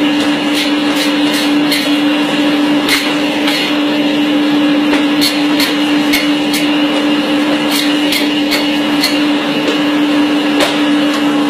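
Electric meat band saw running steadily with a constant motor hum and hiss as its blade cuts through meat. Irregular sharp ticks sound over it throughout.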